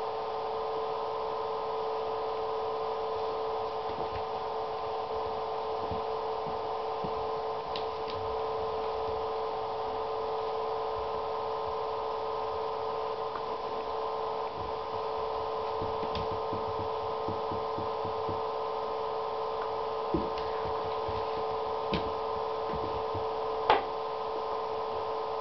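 Steady hum of several tones throughout, with a few light clicks and taps near the end as a kitten bats a small toy around on the floor of an empty acrylic bathtub.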